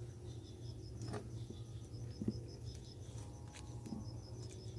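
Faint insect chirping, an even pulsing high trill, over a low steady hum, with a few soft clicks.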